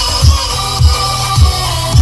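Electronic dance music played loud through a tower party speaker, with a heavy bass kick drum hitting about every half second under a steady bass line.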